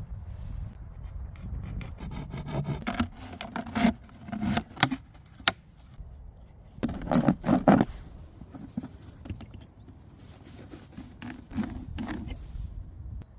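Hands handling gear: irregular scraping and rubbing with sharp clicks and knocks, in louder clusters about three to five seconds in and again around seven to eight seconds.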